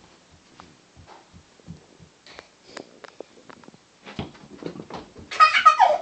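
Scattered soft thumps and knocks for the first few seconds, then, about five seconds in, a loud high-pitched squeal from a toddler lasting under a second.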